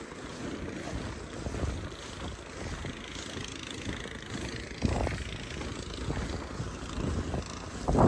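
Strong wind blowing in a snowstorm, buffeting the microphone with a low, uneven rumble. A stronger gust swells about five seconds in.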